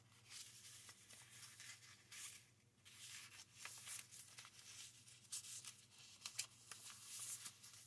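Faint paper rustling and brushing as the pages and flaps of a small handmade paper journal are handled and turned, in a few soft, scattered rustles.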